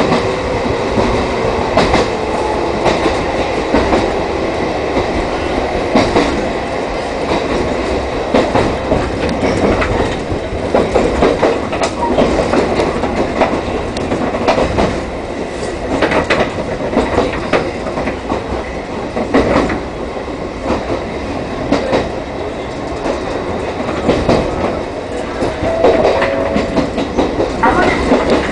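Chichibu Railway 1000 series electric train, an ex-JNR 101 series, running along the line. Its wheels click repeatedly over rail joints over a steady rumble of running noise, with a faint tone holding briefly near the start and again near the end.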